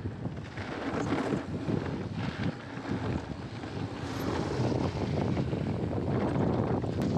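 Wind buffeting the camera microphone over the rumble of mountain bike tyres rolling fast down a dry dirt trail, with many small rattles and knocks from the bike over the rough ground.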